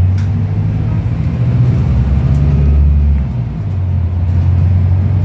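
Volvo B5LH hybrid bus's four-cylinder diesel engine running hard under acceleration, heard from inside the passenger saloon as a loud, low drone. The drone drops away briefly about three seconds in, then picks up again.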